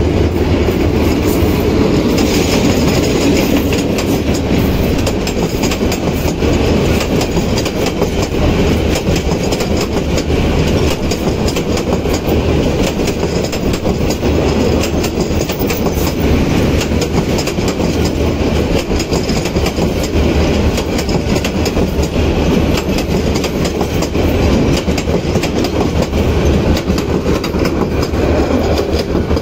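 Diesel-hauled intercity passenger train passing close by at speed: a steady rumble of coaches rolling past, with rapid clicking of the wheels over the rail joints.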